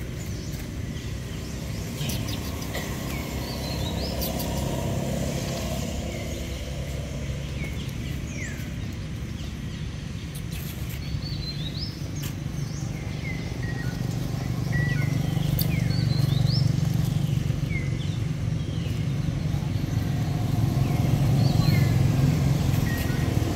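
Birds chirping in short scattered calls over a steady low engine rumble, which swells about two-thirds of the way in and again near the end.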